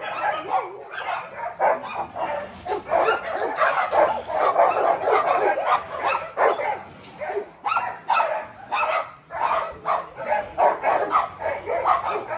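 A group of dogs barking and yipping at once, short barks overlapping one another without a break.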